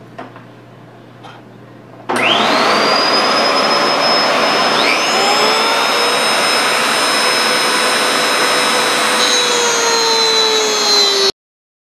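A Dremel rotary tool in its workstation stand starts about two seconds in with a rising whine, then runs at high speed as its cutter bit inlets a black walnut grip blank. A few small clicks come before it starts, and it stops abruptly near the end.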